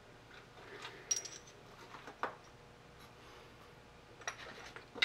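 A few light metallic clicks and clinks from a lathe spindle's steel spacer ring and lock collar being handled and set down.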